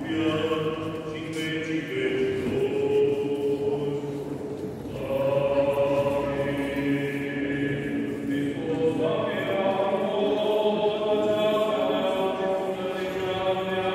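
Orthodox liturgical chant: slow, unaccompanied singing of long held notes, the pitch shifting every few seconds and growing louder about five seconds in.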